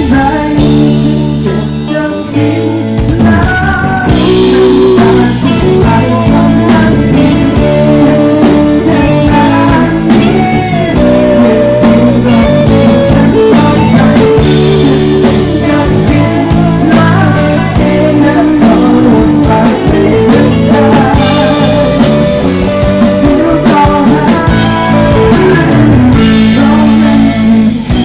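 Loud rock-style band music with electric guitar, drums and singing, played over an outdoor PA sound system during a sound check.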